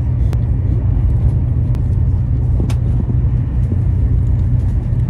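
Steady low rumble of a train in motion, heard from inside the passenger cabin, with a few light clicks.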